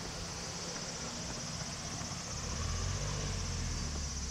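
Insects calling in a steady high drone, with a low rumble coming in about two and a half seconds in.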